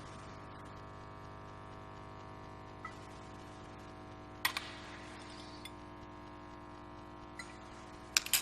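A few light clinks of glass cruets and the chalice being handled at the altar, the loudest about halfway and two close together near the end, over a steady low hum.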